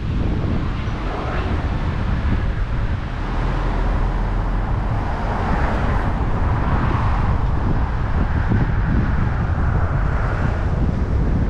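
A car driving along a town street: steady road and engine rumble, with wind on the microphone.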